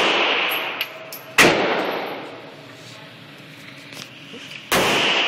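Handgun shots in an indoor range: two sharp cracks about three seconds apart, each followed by a long echoing ring-off.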